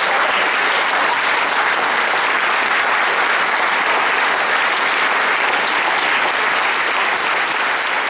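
Audience applauding, a dense, even clapping at a steady level.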